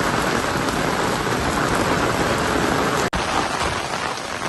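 Heavy rain pouring down onto a paved road, a steady hiss of rain hitting the surface. It drops out for an instant about three seconds in, then carries on.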